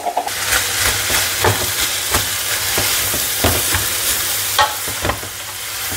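Chopped vegetables (capsicum, carrot, cabbage and onion) sizzling in hot oil while being stirred, with the stirring utensil knocking and scraping against the pan about twice a second.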